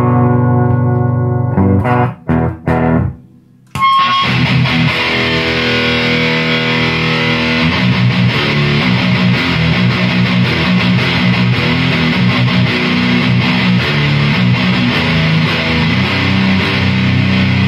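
Electric bass played through an Ampeg V4B reissue tube bass head into a 2x12 and a 4x12 cabinet. It starts with clean ringing notes, then a few short plucks and a brief drop. About four seconds in it switches to a heavily distorted riff that carries on.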